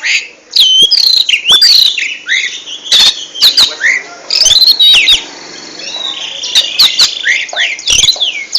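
Oriental magpie-robin (kacer) singing: a fast, varied run of loud whistled notes sliding up and down, mixed with sharp clicking notes. About five seconds in it drops briefly to a quieter, buzzy trill.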